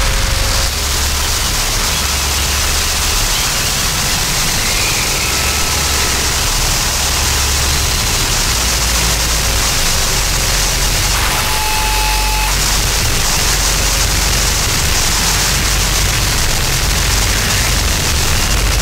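Harsh noise electronics: a loud, unbroken wall of hiss and static over a low rumble that cuts in and out in steps. A few short thin tones poke through, the clearest a high whine about eleven seconds in.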